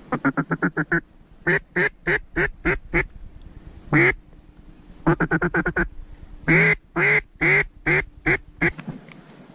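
Mallard duck call blown close by: a fast chatter of quacks in the first second, then spaced single quacks, another quick run near the middle, and a closing series of loud hen quacks.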